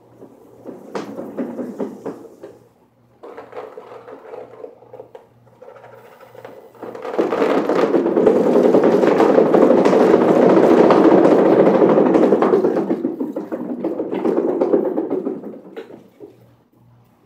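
One Fast Cat exercise wheel spinning under a running cat: a rolling rumble. About seven seconds in it builds to a loud rush as the cat runs flat out, then dies away a couple of seconds before the end as the wheel slows.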